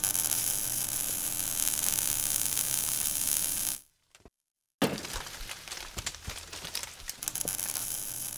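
Outro logo-animation sound effects: a steady hiss for about four seconds that cuts off, then after a brief silence a sudden crash, followed by crackling.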